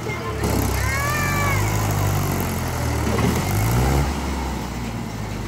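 Mahindra 575 DI tractor's four-cylinder diesel engine labouring under a heavily overloaded trolley, which lifts the tractor's front wheels. The deep engine drone drops about four seconds in. A brief high-pitched cry sounds about a second in.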